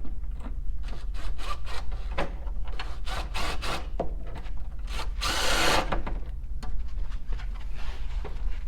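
Hand work on a bolted plastic rear fascia: a run of clicks, taps and scrapes as bolts are started into the panel, with a louder rasping noise lasting about a second a little past the middle.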